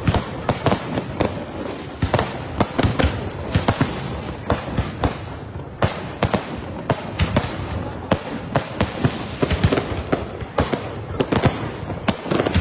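Aerial fireworks display: many sharp bangs of bursting shells in quick, irregular succession over a continuous din of further bursts.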